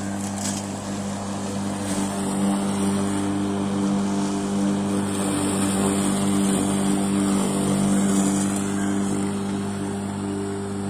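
A 3 hp three-phase electric lawn mower running while cutting dry grass: a steady electric motor hum with the whirr and hiss of the spinning blade through the grass, growing a little louder from about two seconds in.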